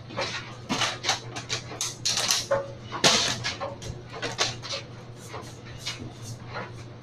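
Plastic water bottle being flipped and landing on its side on a wood-look floor about three seconds in, among a run of short taps and rustles. A steady low hum runs underneath.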